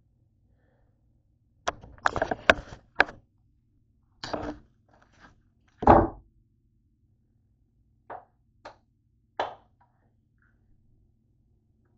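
Knocks and clatter of utensils and a cutting board being handled on a kitchen counter: a quick run of sharp clicks, a thud, then one heavy thump about six seconds in, followed by a few lighter taps.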